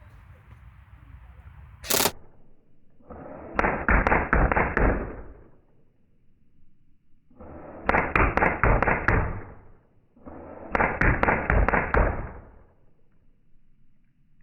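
ASG Scorpion EVO electric airsoft gun firing three short full-auto bursts of 6 mm BBs, each about one and a half to two seconds of rapid cracks over the gearbox's buzz. A single sharp click comes about two seconds in, before the first burst.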